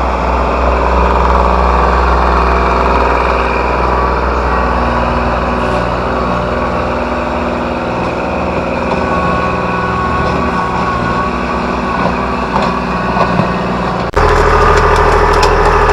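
Tractor engine running steadily as it digs out the gravel road. Near the end the sound cuts abruptly to a louder, closer engine.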